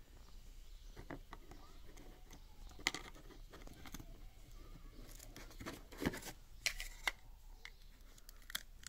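Faint plastic clicks and short scrapes of a chrome Mazda badge being handled and pushed against a plastic wheel centre cap, with a few sharper ticks around the middle and near the end as it is worked toward its clips.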